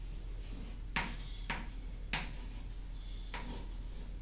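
Chalk writing on a chalkboard: about four sharp taps and short scratchy strokes as the chalk strikes and drags across the board.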